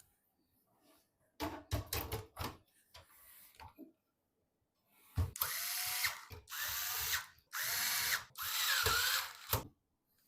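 Electric screwdriver driving screws in four short whirring runs of about a second each, after a few sharp clicks of parts being handled.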